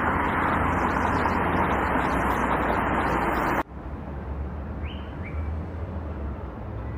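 Steady roar of road traffic that cuts off abruptly a little over three seconds in. Quieter street ambience follows, with two short bird chirps soon after the cut.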